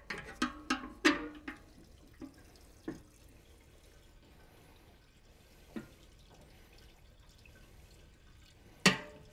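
Gasoline pouring from a red metal gas can into a car's fuel filler, a faint trickle. A few sharp metal clanks near the start and one more near the end.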